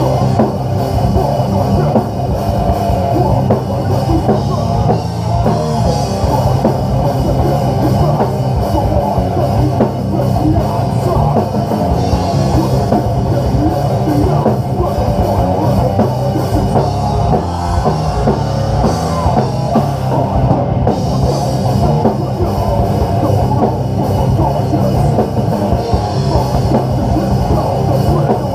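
Live heavy metal band playing loud, with distorted electric guitars over a drum kit pounding steadily with crashing cymbals.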